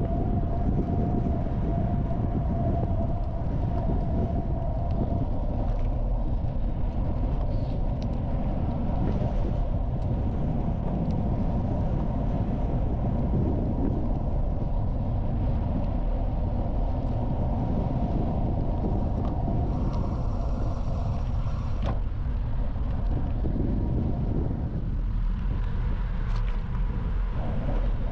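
A gravel bike being ridden: a steady rumble of tyres rolling on the path with wind rushing past.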